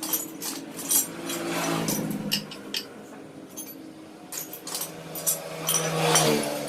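Sharp metallic clicks and clinks of hand tools working on motorcycle engine parts, scattered irregularly, over a steady low hum.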